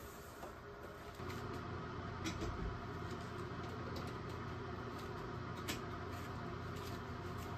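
Steady low hum with a few short light clicks and knocks as a rice cooker's inner pot is set in place and its plug pushed into the wall outlet.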